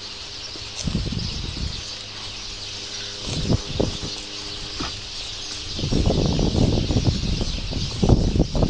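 Outdoor ambience: a steady high hiss with scattered bird chirps, and low rumbling bumps on the microphone that grow heavier and louder from about six seconds in.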